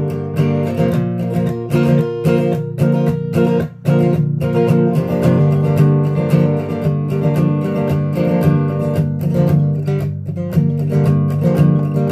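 Acoustic guitar strummed in a brisk, steady rhythm: the instrumental introduction of a song, with no voice yet.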